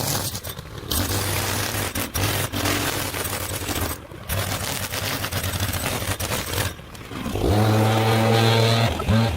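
Rough scraping and clattering with short knocks, then a small engine starts running steadily near the end.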